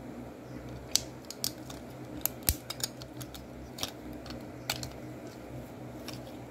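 Hard plastic LEGO figure parts clicking and tapping as hands handle and pose the Indoraptor figure: a dozen or so irregular sharp clicks.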